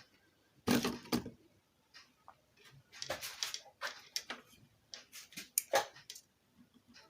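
Irregular clicks and knocks of ceiling fan parts being handled and fitted back together during reassembly, the loudest about a second in and again near six seconds.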